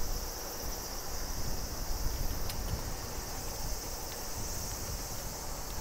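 A steady, high-pitched chorus of insects, with a low rumble of wind on the microphone underneath.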